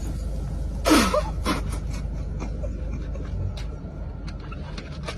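A person's short, sharp gasp about a second in, its pitch falling, and a weaker breath about half a second later. Then only faint clicks over a low steady hum.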